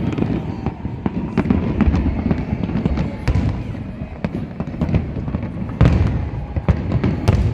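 A large fireworks display: a continuous rumble of shell bursts with many sharp crackles and bangs, the loudest bang about six seconds in.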